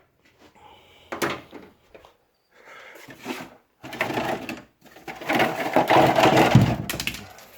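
Parts being handled and rummaged through, with plastic and metal pieces clattering and rustling in short bursts and a longer, louder stretch of rattling near the end.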